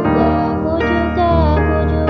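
Music: an acoustic piano instrumental arrangement of a pop song playing held chords.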